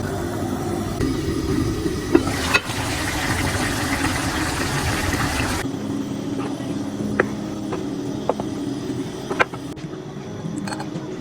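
Kitchen cooking sounds: a steady noisy background with several sharp clinks of a utensil against cookware. A brighter hiss runs from about two and a half to six seconds in, then gives way to a steady low hum.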